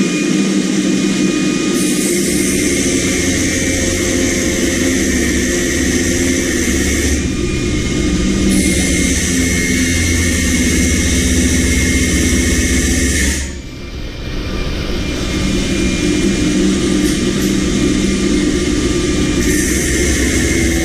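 A power tool's electric motor running at speed with a steady whine, and a hissing, grinding noise that comes and goes. The motor cuts out about 13 seconds in and starts up again.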